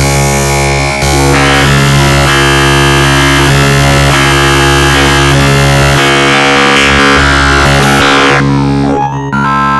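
Dark MIDI arrangement of a Samsung Galaxy ringtone on a software synthesizer: a loud, cacophonous wall of many notes sounding at once. Near the end it thins suddenly to a few held notes.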